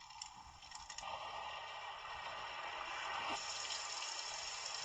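An alarm clock's built-in sleep-sound speaker playing a steady rushing, water-like sound, which gets louder in steps about a second in and again past three seconds as the volume is turned up.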